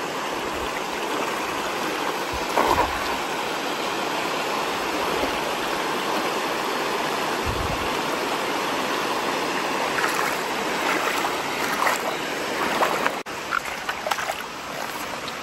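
Steady rush of creek water spilling over a low weir, with a cast net slapping down onto the water about two and a half seconds in. A few brief splashes and knocks follow near the end as the net is hauled in.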